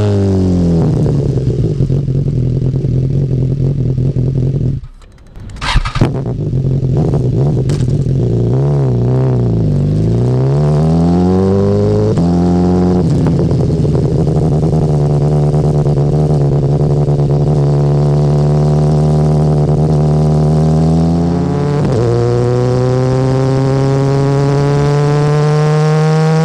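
BMW S1000R inline-four engine through its stock Akrapovič exhaust under hard riding. The revs fall at first, and a brief lull about five seconds in is followed by a couple of sharp cracks. The revs then waver, hold steady for a while and climb steadily near the end.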